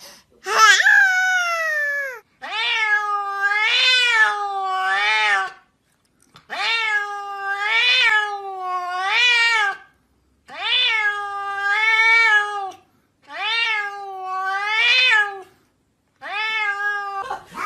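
Domestic cat meowing over and over: about six long, drawn-out meows that waver up and down in pitch, with short pauses between them. The first call slides downward.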